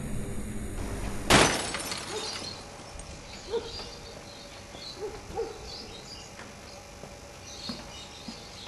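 A sudden loud crash about a second in, like breaking glass, trailing off over about a second. It is followed by quiet outdoor ambience with scattered faint bird-like chirps.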